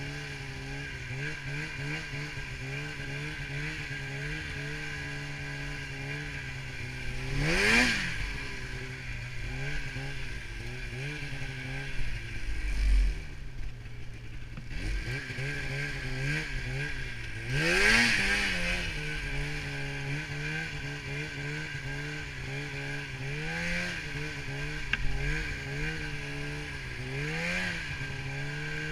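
Polaris snowmobile engine running at steady throttle while riding through deep snow. It gives sharp revs about 8 and 18 seconds in and smaller ones later, and briefly eases off throttle around the middle.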